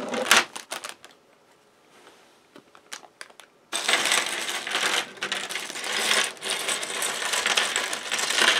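Small plastic Lego pieces clattering. A few sharp clicks come first, then after a short lull a dense, continuous rattle from about four seconds in, like loose pieces being poured and stirred on a table.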